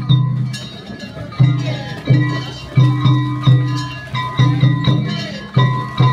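Music carried by a run of plucked notes, each starting sharply and fading, about one to two a second.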